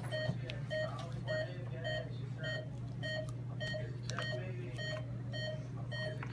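Veterinary patient monitor beeping steadily: two regular series of short electronic beeps, a lower one about three times a second and a higher one about twice a second, over a steady electrical hum, with a few faint handling clicks.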